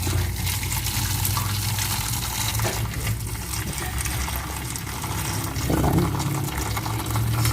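Tap water running and splashing steadily over cooked spaghetti as it is rinsed.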